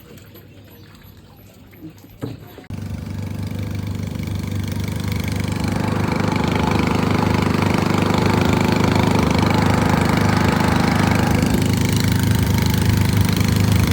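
A small boat's engine starts running about three seconds in, steady and loud, growing louder over the next few seconds, with water noise. Before it, only faint water sounds.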